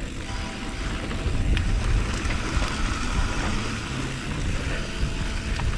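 Wind rushing over a chin-mounted action camera and a mountain bike's knobby tyres rolling on a dry dirt trail during a fast descent: a steady, noisy rumble.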